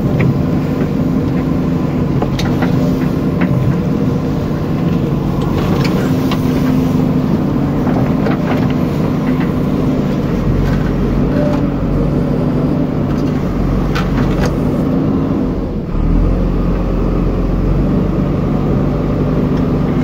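JCB backhoe loader's diesel engine running steadily under load as the backhoe digs, heard from inside the cab, with scattered knocks from the arm and bucket. The engine note dips briefly near the end, then carries on heavier.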